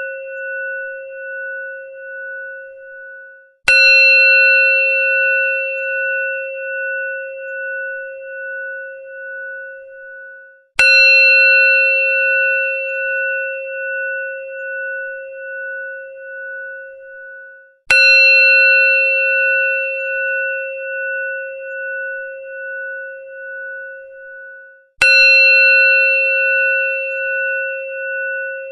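Hindu temple bell (ghanti) struck four times, about seven seconds apart. Each strike rings out with a clear tone that wavers in loudness as it fades, and the ring is still dying away when the next strike comes.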